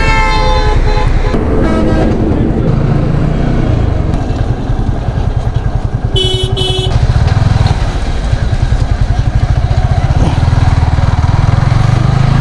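Motorcycle engine running while riding in traffic. A vehicle horn gives two short beeps about six seconds in.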